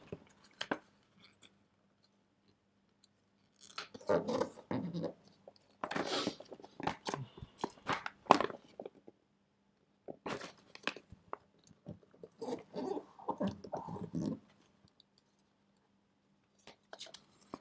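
A sheet of white paper being folded and creased by hand into a paper airplane: crisp crinkling and rustling in several short bouts with quiet gaps between.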